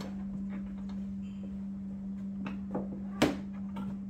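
A few short plastic clicks and knocks as a child handles a ride-on toy car, the loudest about three seconds in, over a steady low hum.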